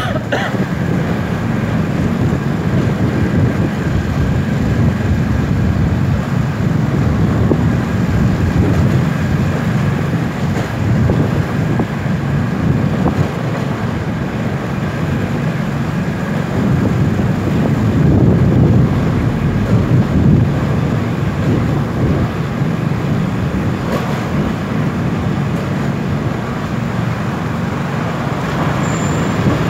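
Motorcycle riding through a road tunnel: steady engine and road rumble, with wind on the microphone.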